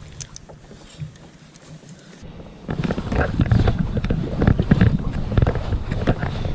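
Rumbling, rustling noise right at a body-mounted camera's microphone, with many small knocks, as the angler works the reel; it becomes much louder about two and a half seconds in.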